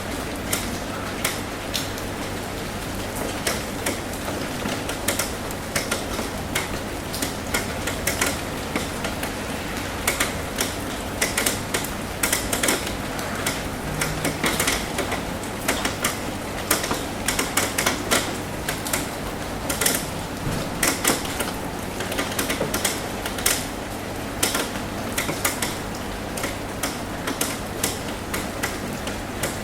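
Raindrops tapping on a metal roof: many irregular sharp ticks over a steady patter of rain.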